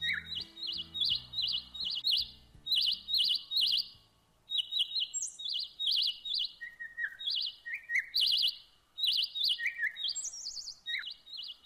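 Small birds calling from the trees: short, rapid, high chirps repeated in quick runs of two or three, with occasional lower falling notes and a couple of brief pauses.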